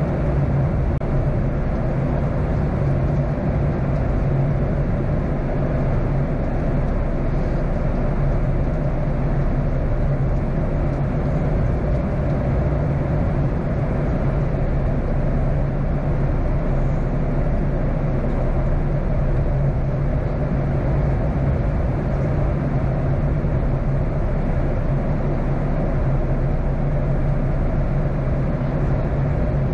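Steady cabin noise of a Boeing 737-800 in cruise-descent, heard inside the cabin at a window seat beside the engine. The CFM56-7B turbofan gives a constant low hum under a steady rush of air, with no change in pitch or level.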